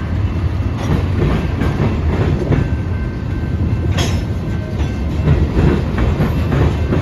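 Union Pacific freight train rolling past, a steady low rumble of its cars' wheels on the rails with scattered clicks and one sharp clank about four seconds in.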